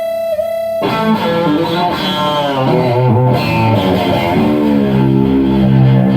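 Electric guitar played through a guitar amplifier: a held lead note with vibrato, then about a second in a run of picked notes with string bends, settling onto lower notes near the end.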